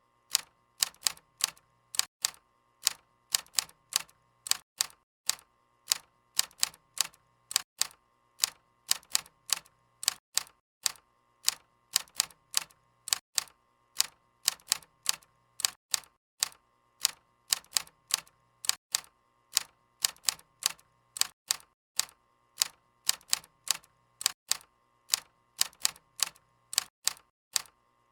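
Typewriter keys striking out typing, sharp clacks at about three a second in an uneven rhythm with brief pauses between runs of keystrokes.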